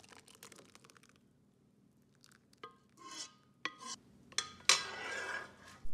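A metal ladle clinking and scraping against a metal pan and bowl as soup is poured out: a handful of sharp clinks, some with a short ring, then about a second of soup pouring and splashing into the bowl near the end.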